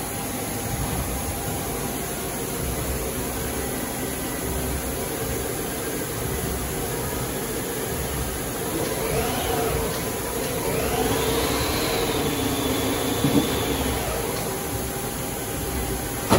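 Haas SL-30T CNC lathe running with a steady machine hum. About nine seconds in, the spindle drive whine briefly rises and falls. A second later it climbs higher, holds for a couple of seconds and winds down as the spindle speeds up and slows, with a short sharp knock near the end of that.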